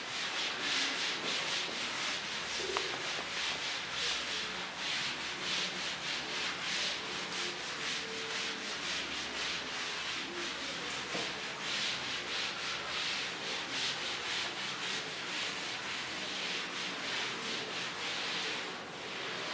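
Cloth rubbed hard across a chalkboard, erasing chalk writing in rhythmic back-and-forth strokes: a dry, scratchy swishing.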